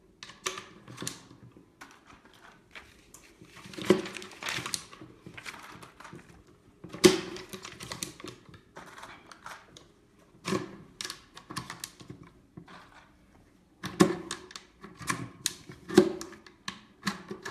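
9 mm P.A.K. blank cartridges being pressed one at a time by hand, without a loader, into the magazine of a GSG StG44 blank-firing rifle. Each goes in with a sharp metallic click, with short rattles and scrapes between, at irregular intervals a second or more apart.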